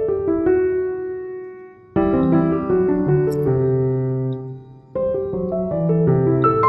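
Background piano music: notes struck and left to ring, a new phrase beginning about two seconds in and again about five seconds in.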